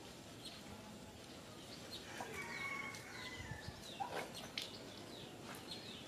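Chickens calling and clucking faintly, with short high chirps scattered through and a falling call about four seconds in.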